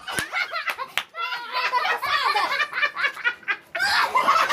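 A group of people laughing and giggling, with two sharp knocks in the first second.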